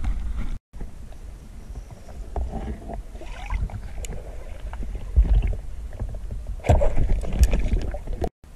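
Water rumbling and sloshing against an underwater camera as a free diver moves, with louder knocks and splashes about five seconds in and again around seven seconds in.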